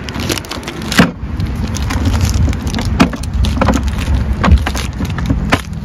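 Hands handling a zip-top plastic bag and a yellow DeWalt plastic case: a few sharp knocks and clicks, one about a second in and another near the end, over a low steady rumble.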